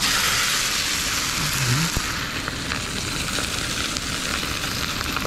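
Trout fillet sizzling in very hot vegetable oil in a frying pan. The sizzle starts suddenly and loud, then eases a little after about two seconds and carries on steadily.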